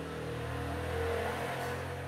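A motor engine running with a steady low hum, swelling about a second in and then easing off.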